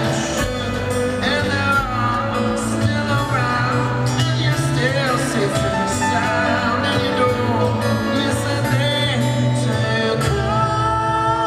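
Live band music: a man singing over acoustic guitar with bass and band backing, in a slow, mellow song.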